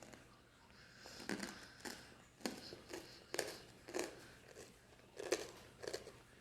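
A person chewing crunchy food, with a crunch roughly every half second.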